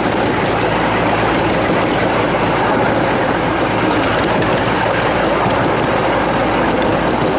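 15-inch-gauge miniature railway car rolling along the track at speed: a steady rumble of wheels on rail.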